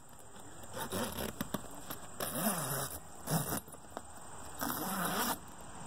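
Zipper on a soft vinyl-and-fabric UTV cab enclosure door panel being worked open in several rasping pulls, to fold the clear window down.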